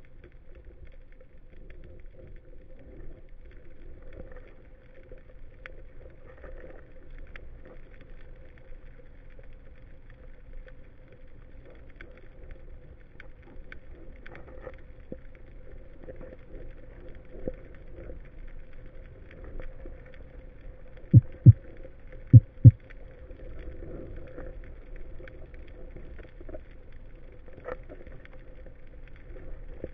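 Underwater ambience picked up by a diver's camera on the seabed: a steady low rush with faint scattered clicks and a faint steady hum. A little past two-thirds of the way through come two pairs of short, dull, low thumps, about a second apart.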